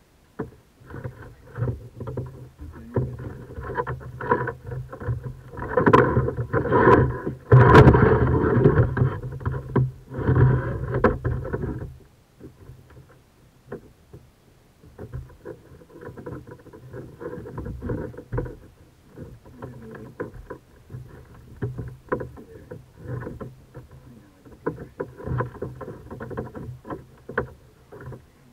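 Kayak being paddled: irregular splashes of the paddle in the water and knocks against the hull over a low rumble. It is loudest in the first half and breaks off abruptly about twelve seconds in, then quieter strokes continue.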